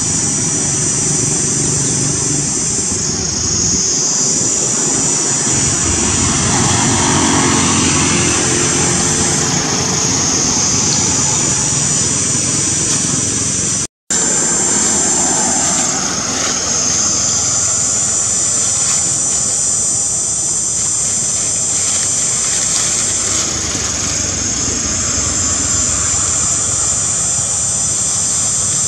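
Steady loud drone with a high, shrill buzzing band that fades away and comes back every several seconds. The sound cuts out completely for an instant about halfway through.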